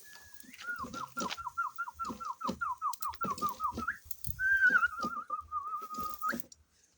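A man whistling to a domestic animal as he tends it, the whistle meant to calm it and keep it still: a quick run of about a dozen falling notes, then a long wavering note that ends with an upward flick.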